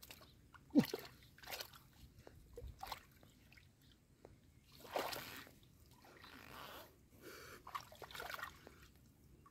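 Hands groping and sloshing in shallow muddy water and mud, with scattered small splashes and gurgles; the loudest is a short plop about a second in.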